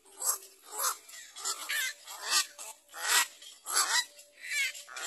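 Black-crowned night herons at the nest giving a series of about eight harsh, rasping calls, one every half to three-quarters of a second.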